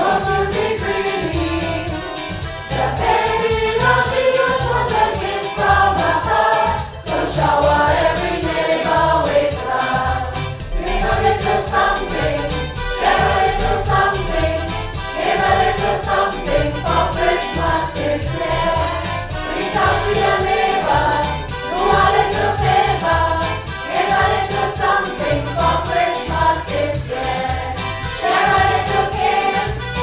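Choir singing over music with a steady beat.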